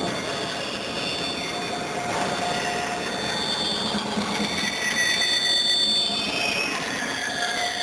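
Centauro Sawflex CNC band saw running, a steady mechanical noise with high-pitched whining tones that shift and swell slightly about two-thirds of the way through.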